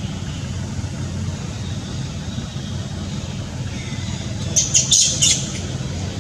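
A quick run of short, high-pitched squeaking calls from an animal, about four and a half seconds in, over a steady low rumble.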